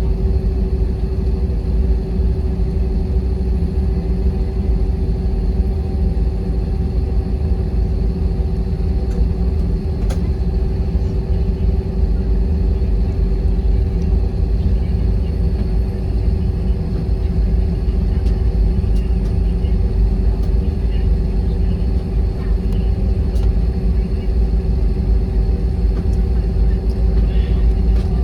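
Airliner cabin noise: a steady, loud low rumble with a constant hum running through it.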